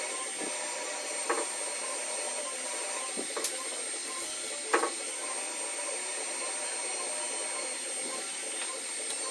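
A power tool running steadily, a hiss with a thin high whine, broken by a few sharp knocks.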